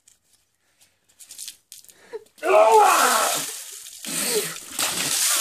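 A plastic basin of cold water dumped over a man's head, splashing over him and onto the paving stones, starting suddenly about two and a half seconds in. He cries out at the cold over the splash, and a second burst of splashing and voice follows about four seconds in.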